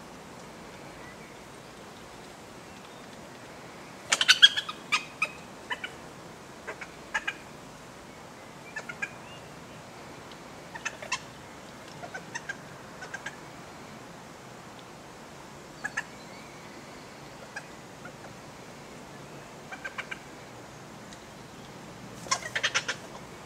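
European badger cubs chittering: bursts of short squeaky calls, densest about four seconds in and again near the end, with scattered single chirps between.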